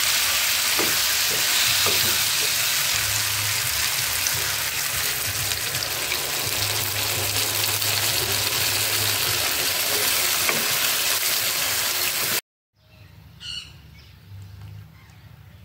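Potatoes, onions and tomatoes frying in oil in a pan: a loud, steady sizzle, with occasional taps and scrapes of a wooden spatula stirring. About twelve seconds in, the sizzle cuts off abruptly and only much quieter sounds follow.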